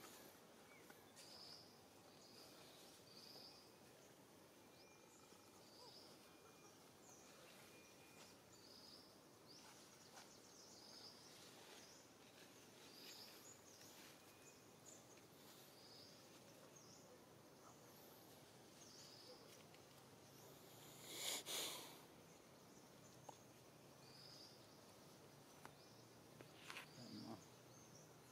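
Quiet outdoor ambience with a faint high chirp repeating every second or two. About two-thirds of the way through, a short loud sound comes twice in quick succession.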